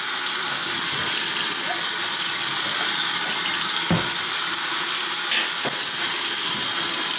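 Water running steadily from a tap into a sink, with one short knock about four seconds in.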